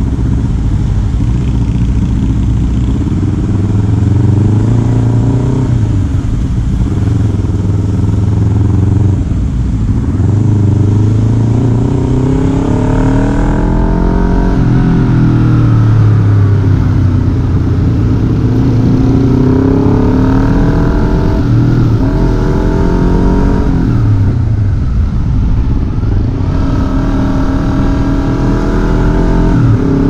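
Honda CBR250RR's 250 cc parallel-twin engine through a Leovince LV One slip-on exhaust with the dB killer fitted, heard from the rider's seat. The engine revs up through the gears several times, each climb in pitch followed by a drop at the shift, over a steady low exhaust rumble.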